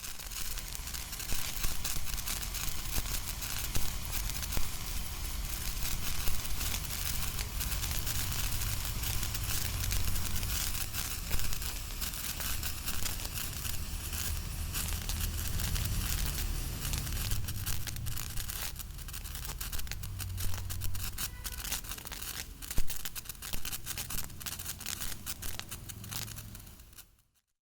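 Pencil crackle firework burning: a dense, continuous crackling of tiny pops over a fizzing hiss, with a few louder cracks, cutting off suddenly near the end.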